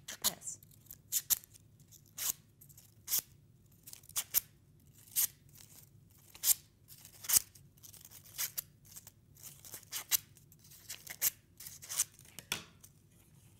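Strips of brown paper bag being pulled one after another along an open scissor blade to curl them: a string of short, sharp scraping strokes, irregular, roughly one or two a second.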